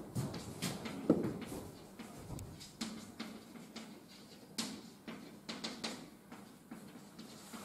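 Chalk writing on a blackboard: a string of short taps and scratches as letters are formed, with a sharper knock about a second in.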